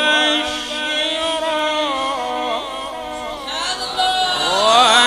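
A man reciting the Quran in melodic tajwid style: long held notes, ornamented with small turns of pitch. The phrase breaks off about three and a half seconds in, and a new one rises from low about four seconds in.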